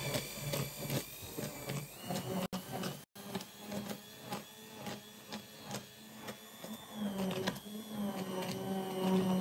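Hand-held immersion blender running in a pot of braising sauce, puréeing the softened vegetables into the liquid to thicken it. A steady motor whine with rapid, irregular clicking and churning from the blade in the sauce.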